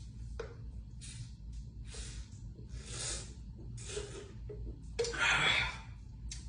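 A person chugging a shotgunned can of beer, with short gulping, rushing sounds about once a second and a louder rush of air about five seconds in.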